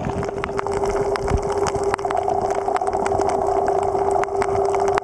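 Underwater sound of a boat engine carried through the water: a steady hum, joined by a second, higher tone about two seconds in, over a constant scatter of sharp clicks.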